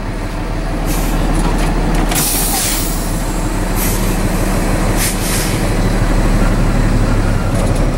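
Tractor-trailer engine running steadily as the truck creeps forward at walking pace for a service brake test, with a few short hisses of air from the air brakes, the longest about two seconds in.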